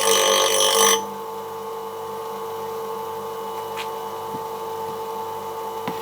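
Mac Allister MBGP150B bench grinder running with a steady hum. For about the first second, metal is held against the spinning grinding wheel, making a loud harsh grinding. Then it is lifted off and the motor runs on alone, with a few faint clicks.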